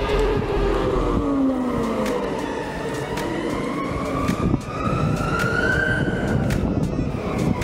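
Kingsong S22 electric unicycle's hub motor whining while it is ridden. The pitch dips at first, then climbs steadily for a few seconds and falls again near the end, over a steady rush of wind and tyre noise.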